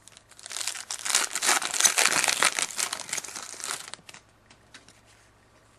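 Trading-card pack wrapper crinkling as it is handled and opened by hand. The crinkling starts about half a second in and stops about four seconds in.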